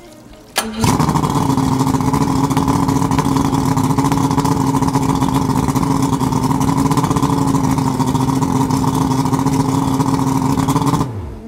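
1992 Yamaha 150 two-stroke V6 outboard starting up less than a second in and idling steadily, run with its poppet valve removed to check cooling water flow. Near the end it is shut off and runs down, its pitch falling.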